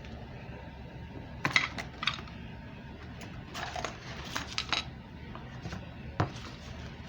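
Small metal parts, nuts and bolts, clinking and clattering as they are handled: a couple of sharp clinks about a second and a half in, a quicker cluster of rattles between about three and a half and five seconds in, and one more knock near six seconds.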